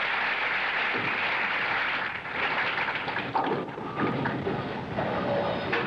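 Bowling crowd applauding a strike, with the clapping thinning out after about two seconds into scattered crowd noise.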